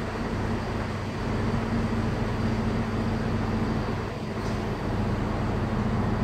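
Class 642 diesel railcar idling at the platform: a steady low engine hum with a constant drone.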